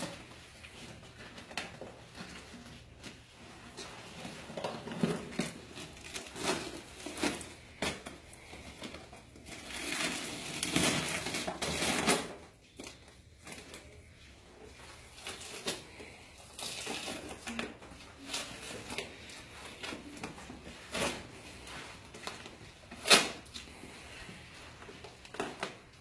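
A plaster leg cast being broken open and pulled apart by hand: irregular crunching and crackling of plaster and tape. There is one longer rasping stretch about ten seconds in, and a sharp snap near the end.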